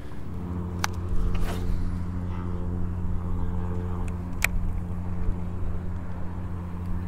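Bow-mounted electric trolling motor running with a steady low hum, holding the boat in place against the current; two sharp clicks, about a second in and past the middle.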